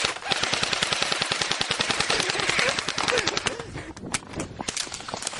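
Airsoft guns firing full-auto in a long rapid stream of shots. About three and a half seconds in, the fire thins to scattered single shots.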